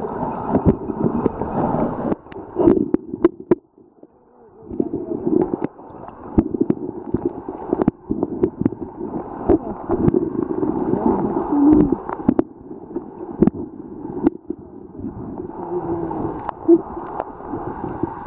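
River water heard through a submerged camera: a muffled rushing and gurgling, with many sharp clicks and knocks and a brief lull about four seconds in.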